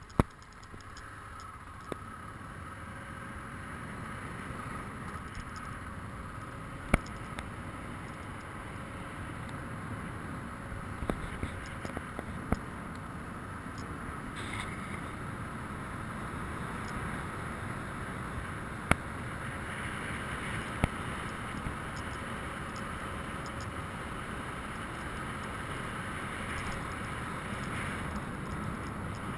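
BMW motorcycle riding along a rough dirt track: steady engine and road noise throughout, with a handful of sharp knocks and clatters scattered through it, the loudest near the start and about seven seconds in.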